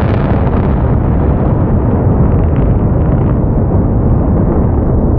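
Blast of explosive demolition charges on a steel truss highway bridge, carrying on as a loud, continuous rumble with a few faint cracks as the spans start to come down.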